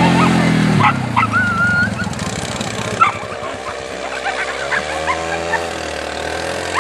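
A quad bike's engine running for the first second, then cutting off; after that, whippets barking and whining in short cries whose pitch rises and falls.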